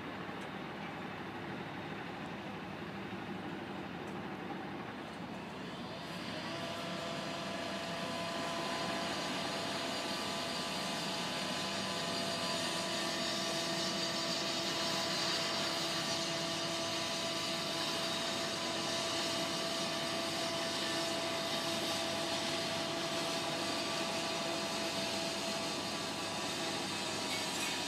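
Swing bridge's drive machinery running as the bridge swings open: a steady mechanical whine with several held tones over a hiss, growing louder about six seconds in.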